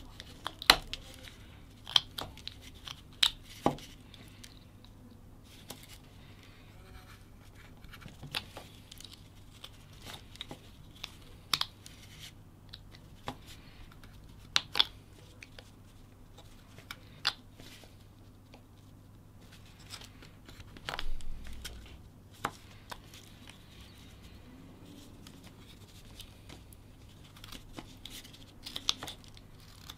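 Whittling knife cutting into a block of wood: sharp, separate snaps and crackles as slices and chips break away, every second or few seconds, with a longer run of scraping cuts about 21 seconds in.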